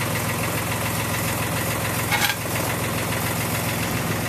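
JCB micro digger's diesel engine running steadily, with a brief louder sound about two seconds in.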